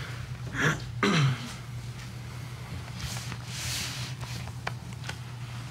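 Quiet pause in a church sanctuary: a steady low electrical hum, with two short breathy noises about half a second and a second in, a soft rustle a little after three seconds, and a small click near the end.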